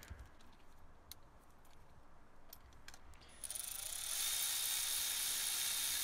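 Milwaukee cordless electric ratchet driving a new spark plug into the cylinder head. It starts a little past halfway, rises briefly in pitch as the motor spins up, then whirs steadily. Before it there are a few faint clicks of handling.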